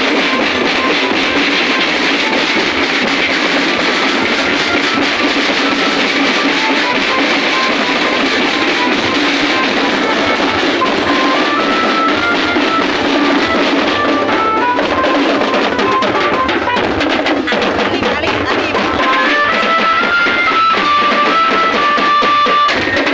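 Loud music with a drum beat and a stepping melody line.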